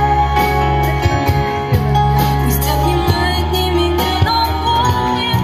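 A live pop band playing: a woman singing over bass guitar, drums and keyboard, with a steady beat.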